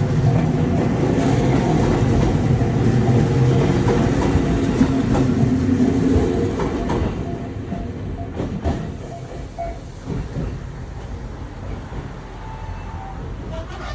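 Kumamoto Electric Railway 03 series electric train passing over the level crossing. It rumbles loudly on the rails for the first six or seven seconds, gives a few clacks over the rail joints, then fades as it moves away.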